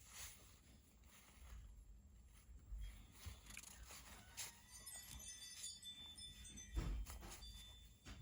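Faint handling sounds of small metal knife parts and tools: scattered light clicks and scrapes with brief thin metallic rings, and a soft knock about seven seconds in.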